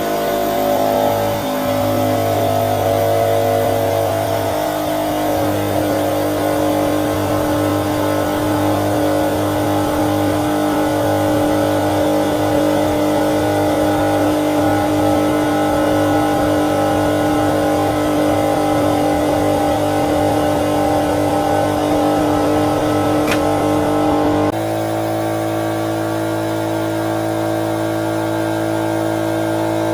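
Hydraulic press pump and motor running steadily under load: an even, loud hum made of several held tones. Its tone changes abruptly about three-quarters of the way through.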